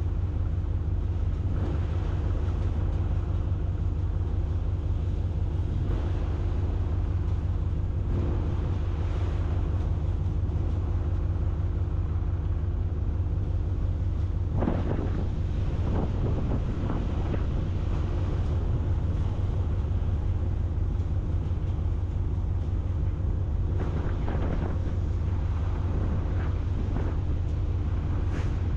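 Strong wind buffeting the microphone over an engine running steadily, with a few brief louder noises about halfway through and again near the end.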